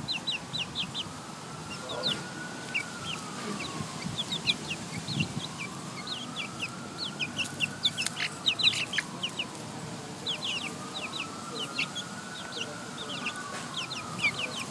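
Young chicks peeping: many short, high-pitched cheeps in quick runs. A faint tone rises and falls in the background every few seconds.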